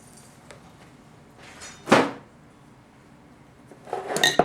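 Parts being handled on a workbench: a brief scrape or slide about two seconds in, then a quick cluster of knocks and ringing metallic clinks near the end.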